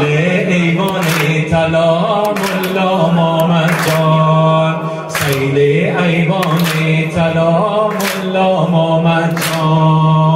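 Male voices singing a Persian devotional song (manqabat) in praise of Imam Ali, with long held notes over a sharp beat about every second and a half.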